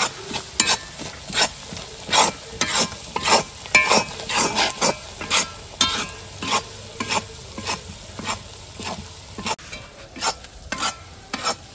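Flat spatula scraping and stirring a frying masala around a metal kadai, with an uneven run of scrapes and clinks about twice a second over a steady sizzle.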